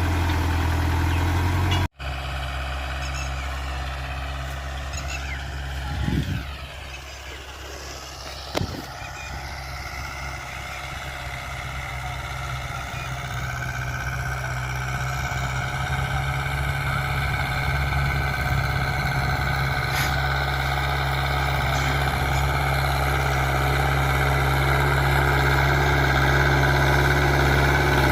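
Mahindra 475 DI tractor's four-cylinder diesel engine running steadily. The sound breaks off abruptly about two seconds in, then comes back and grows gradually louder, with two brief thumps around six and eight seconds in.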